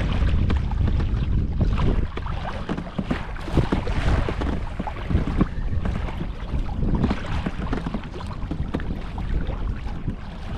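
Wind buffeting the microphone in a heavy low rumble, with small waves slapping and splashing against a kayak's hull on choppy water.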